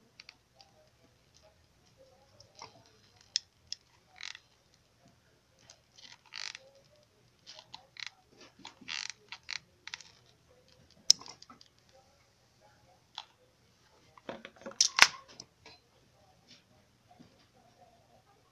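Hot glue gun being worked at the plug end of a laptop charger cable: sporadic clicks and short rasps from the trigger and handling, with a louder cluster of clicks about fifteen seconds in.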